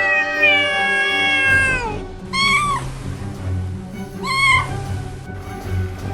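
Animal calls: one long drawn-out call that drops in pitch at its end, then two short calls about two seconds apart, over background music.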